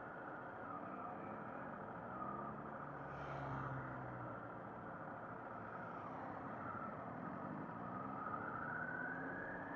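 Harley-Davidson Sportster's V-twin engine running at low road speed on a test ride. Near the end its pitch rises as the bike picks up speed again.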